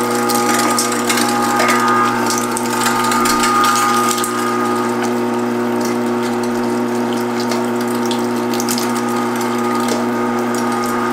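Electric meat grinder running with a steady motor hum while grinding venison through a coarse plate, with irregular crackling clicks, thickest in the first few seconds, as the meat is forced through.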